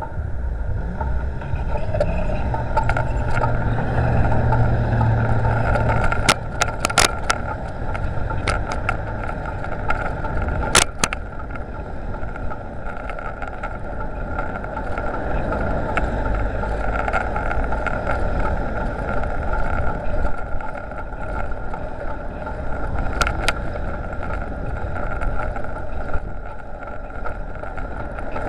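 Steady rumble and rushing noise from riding a bicycle with a handlebar-mounted video recorder, the air and road vibration on its microphone, with a few sharp clicks and knocks as the mount rattles over bumps.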